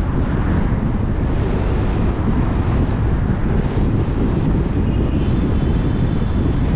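Steady low rumble of a car driving, with road noise and wind buffeting the microphone. A faint, thin high tone joins about five seconds in.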